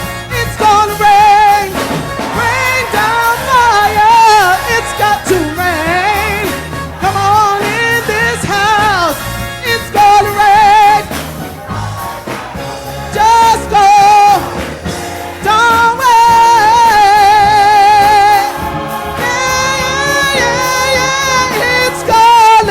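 Gospel-style singing with instrumental accompaniment: a lead voice holding long notes with wide vibrato over a steady bass line.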